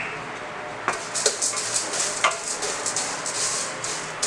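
Wooden spoon stirring dry vermicelli in hot oil in a stainless steel pan: the strands rustle and sizzle lightly as they start to roast. The spoon knocks against the pan twice, about one and two seconds in.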